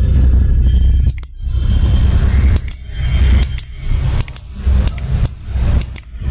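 Computer mouse clicking, about ten short sharp clicks spread through, over a loud low rumble that dips in and out several times.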